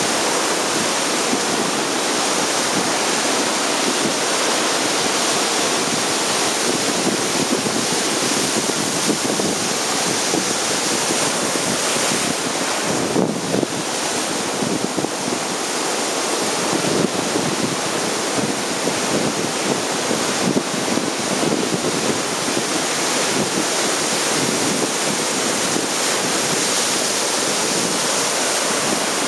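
Ocean surf breaking and washing through the shorebreak: a steady, unbroken rushing hiss.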